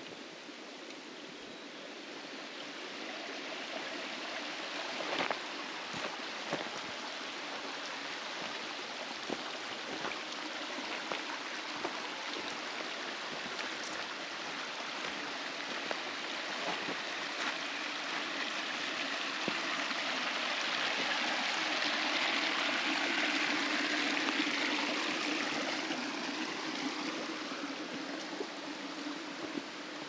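Mountain stream rushing over rocks, a steady hiss of running water that grows louder toward a peak about two-thirds of the way through and then fades, as if walked past. A few faint knocks sound over it.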